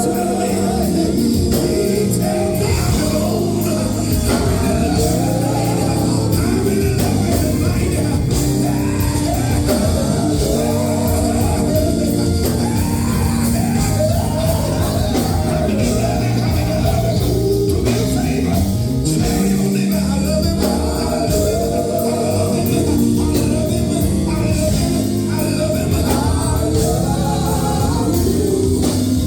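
Live gospel group performance: a band playing with singing voices over it, continuous and loud, in a large hall.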